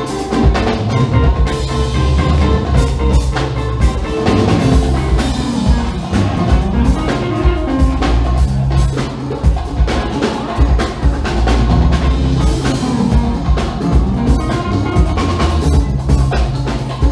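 Funk band playing live: drum kit, electric bass and electric guitar with tenor saxophone and percussion, a steady groove with the drums prominent.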